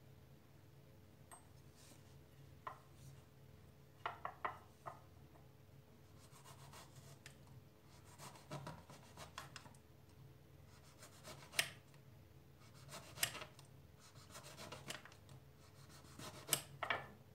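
Kitchen knife slicing through an eggplant on a wooden cutting board: faint rubbing cuts through the skin and flesh, with scattered light taps as the blade meets the stop.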